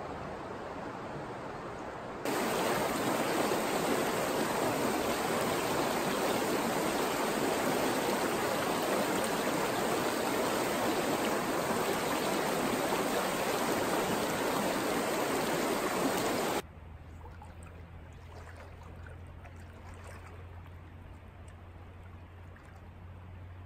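Shallow creek running over rocks, a steady rush of water. It jumps abruptly louder about two seconds in, beside a whitewater riffle, then drops suddenly to a quieter flow with a low steady hum.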